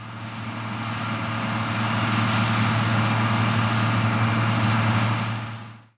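1975 Claas Senator 85 combine harvester running with a steady low engine hum over the rush of its machinery, growing louder over the first two seconds, then holding steady before fading out near the end.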